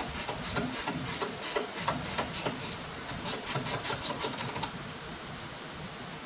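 Hand ratchet wrench clicking in quick, even strokes while undoing a bolt on the car's underbody cross brace. The clicks come about four a second, speed up, then stop short about three quarters of the way through.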